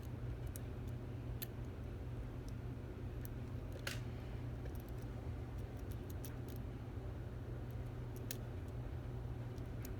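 Faint, irregular small metal clicks and scrapes of a lock pick and tension wrench working the pin tumblers of a Stanley 24/7 padlock, over a steady low hum.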